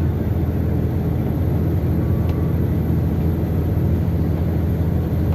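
Heavy truck's diesel engine running steadily under way, a constant low drone.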